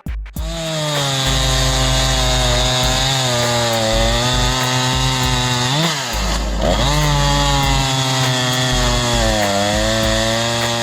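Jonsered CS2255 55cc two-stroke chainsaw running at high revs while cutting wood. About six seconds in, its pitch drops sharply and climbs back to a steady note.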